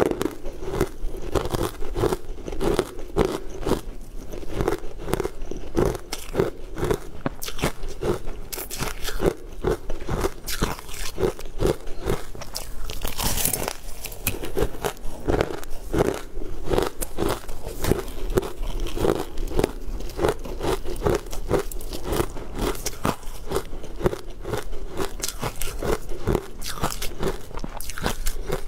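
Close-miked biting and chewing of green-powder-coated ice chunks: a dense, continuous run of crisp crunches and cracks as the pieces are bitten and crushed between the teeth.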